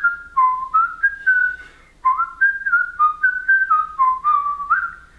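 Sphero talking Spider-Man toy whistling a short tune through its speaker while it waits: a clean whistle hopping between a few notes, in two phrases with a brief break about two seconds in.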